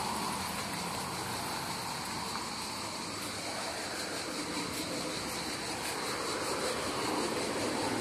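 Steady road-traffic noise from a busy nearby road, an even hiss of passing vehicles.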